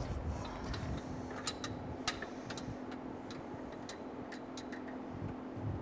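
Scattered light metallic clicks and ticks from the threaded RPM sensor and its lock nuts being turned down into the engine block, the sharpest about two seconds in, over a steady low hum.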